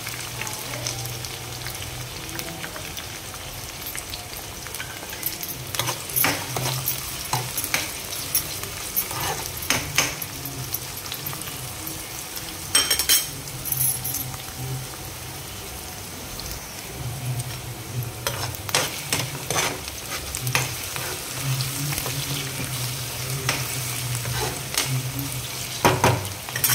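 Chopped onions and green chillies sizzling in hot oil in a kadai, a steady frying hiss, with a spatula stirring and scraping against the pan several times.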